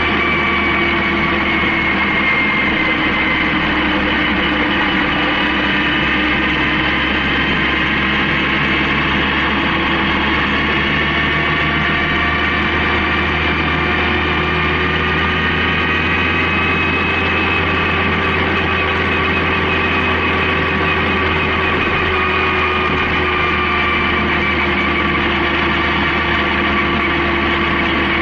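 Honda CB750K's air-cooled inline-four engine running at a steady cruise, its pitch drifting slowly up and down.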